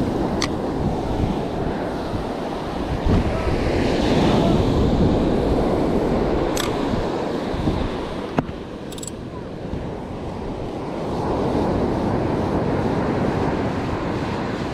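Surf washing onto the beach in two swells, with wind buffeting the microphone and a few sharp clicks.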